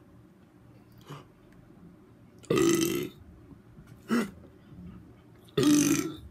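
A man burping: two loud belches, each about half a second long, with a shorter, softer one between them.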